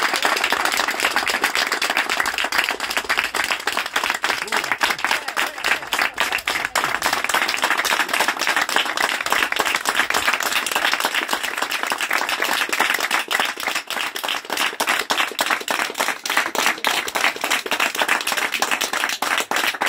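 A small group of people clapping hands in steady, sustained applause, the claps dense and overlapping with no break.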